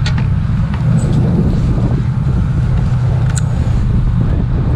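Steady low drone of a party fishing boat's engine heard from the deck, with a couple of faint sharp clicks, one just after the start and one about three and a half seconds in.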